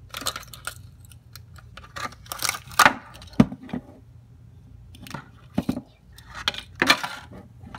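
Clear plastic blister packaging and a hard plastic pony figure being handled: irregular crinkles, rustles and clicks in short spells, with one sharp knock about three and a half seconds in.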